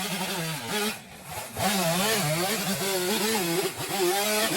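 Chainsaw running and cutting a notch into a tree trunk, its engine speed rising and falling under load. It eases off briefly about a second in, then picks back up.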